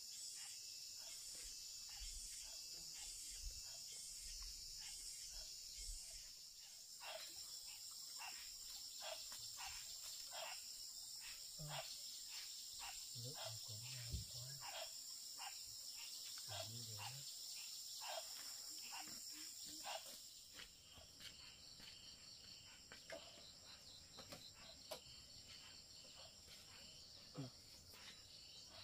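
Faint insect chorus, a steady high-pitched trilling, pulsing for the first few seconds. Between about 7 and 20 seconds in, a run of short, sharp taps or clicks sounds over it.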